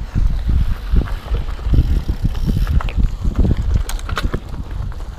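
Mountain bike riding over a rough dirt and gravel trail: tyres crunching on the gravel, the bike knocking and rattling over bumps, and wind rumbling on the microphone.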